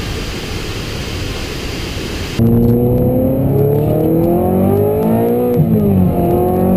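Waterfall rushing as a steady noise, cut off about two and a half seconds in by a car engine accelerating hard. Its pitch climbs, drops at a gear change about three seconds later, then climbs again.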